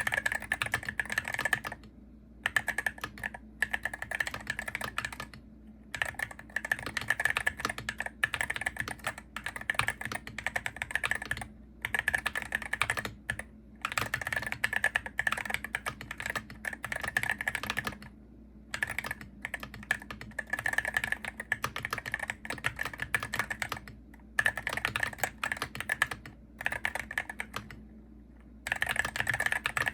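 Typing on a Hero68HE gaming keyboard: fast runs of key clacks, broken by short pauses every few seconds.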